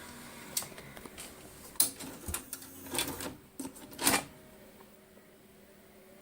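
Clicks and clunks of a Sony UVW-1700 Betacam SP video deck's buttons and tape transport being worked: about half a dozen over four seconds, then only the machine's faint steady hum.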